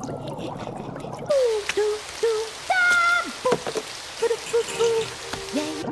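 Cartoon water and slime sound effects: a short hiss of running water, then from about a second in a string of gloopy plops and drips, some with quick rising or falling pitch.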